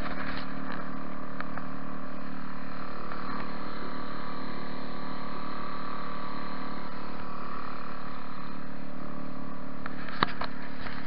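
Suzuki outboard motor running at a steady cruising speed, pushing an inflatable boat across open water in an even drone. A single short knock near the end.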